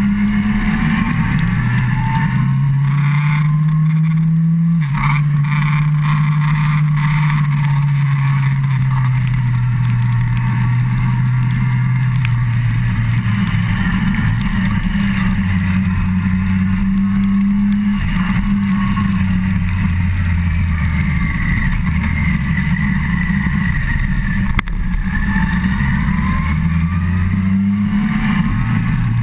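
Yamaha FZ1's inline-four engine running under way, its revs climbing and then dropping sharply with a gear change about five seconds in, then slowly falling, and rising and falling again later, over a steady rushing noise.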